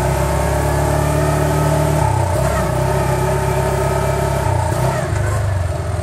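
Vector 500 4x4 UTV engine running under way at speed. Its note steps down about two seconds in and again near the end as the seat-belt speed governor kicks in and out, because the driver's seat belt is not buckled.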